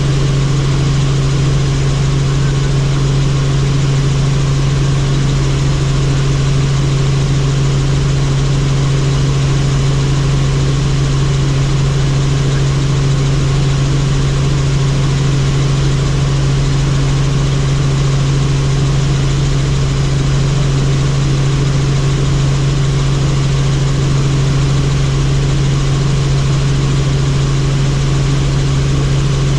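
Helicopter in flight: a loud, steady drone of engine and rotors, with a strong low hum that holds one pitch throughout.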